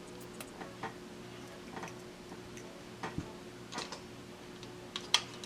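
Scattered light clicks and taps of plastic blaster parts being handled and worked apart, at irregular intervals, with a sharper click about five seconds in. A faint steady hum runs underneath.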